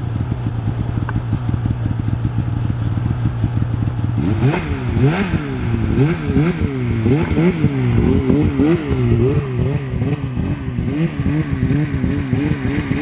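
Polaris snowmobile engine idling steadily. From about four seconds in, it is revved up and down again and again in quick throttle blips.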